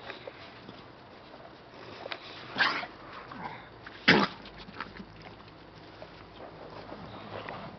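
American Staffordshire Terriers playing, with two short dog barks about two and a half and four seconds in; the second is the louder.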